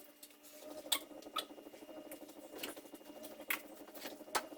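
About five sharp clicks and taps, spread unevenly, over a faint steady hum.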